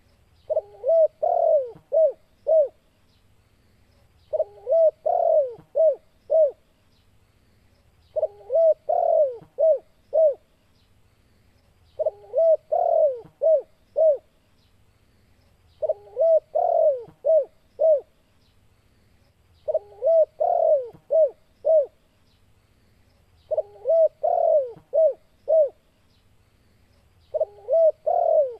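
Spotted dove cooing its 'kuk 2' song, a lure call for calling in wild spotted doves. Each phrase is a quick run of several coos, and the same phrase comes back about every four seconds, eight times over.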